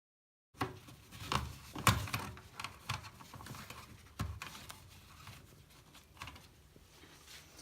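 Handling noise: irregular clicks, taps and knocks of hands working with small parts, starting abruptly about half a second in and loudest in the first two seconds.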